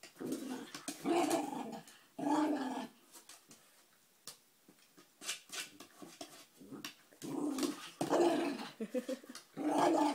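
Poodle puppy growling and grumbling at a pig ear treat, in several short bouts, the longest near the start, with pauses in between.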